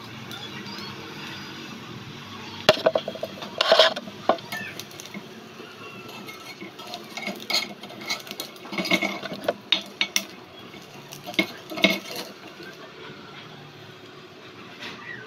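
A tiny metal spatula scraping and clinking against a miniature steel wok as a small fried egg omelette is lifted out, with the sharpest knocks about four seconds in and again near twelve seconds. A faint steady hiss runs underneath.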